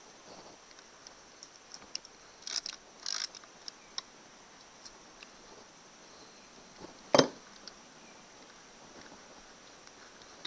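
Hand tools on an outboard's metal casing: light metallic clicks from a socket and extension being worked on the screws, two short bursts of clicking about two and a half and three seconds in, and one sharp knock about seven seconds in.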